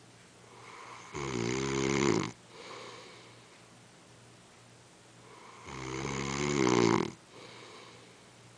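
A man snoring: two loud snores about four and a half seconds apart, each building up and then cutting off sharply, with a softer breath after each.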